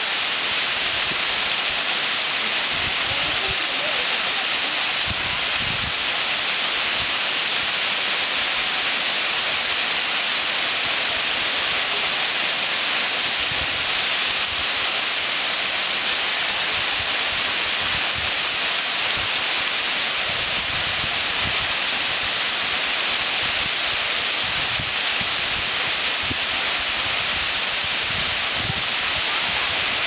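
Waterfall pouring onto rock: a steady, unbroken rush of falling water, bright and hissy.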